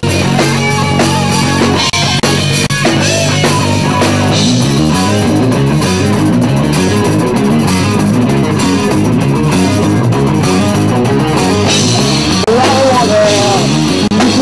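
Live rock band playing loudly: distorted electric guitars, bass guitar and a drum kit.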